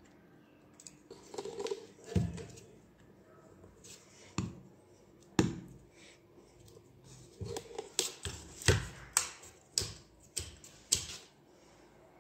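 Hard plastic clicks and knocks as 3D-printed plastic brackets and a disc are handled and pressed onto a small DC pump motor. A few single knocks come first, then a quick run of about a dozen clicks in the second half.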